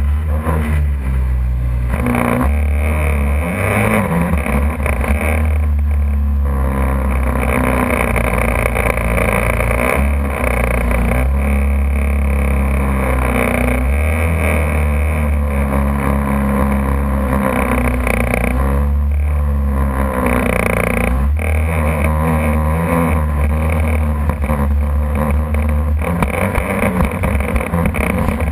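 Jet ski engine running under way, its pitch rising and falling over and over as the throttle is opened and eased, over a heavy low rumble.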